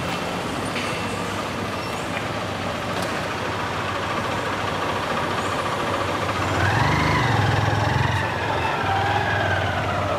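Steady street and traffic noise. From about six seconds in, a motor vehicle engine runs close by, its pitch rising and falling as it revs.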